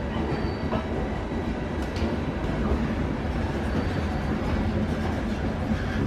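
Intercity passenger coaches and their electric locomotive rolling past along a platform: a steady rumble of wheels on rail, with an occasional faint click.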